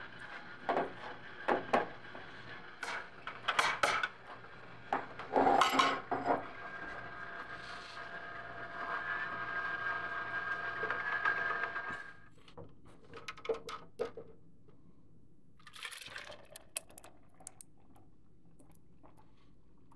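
Vertical slow juicer's motor running with a steady whine while glass and plastic containers clatter and knock, loudest about five to six seconds in. The motor stops about twelve seconds in, followed by a few light clinks and a short rustling burst.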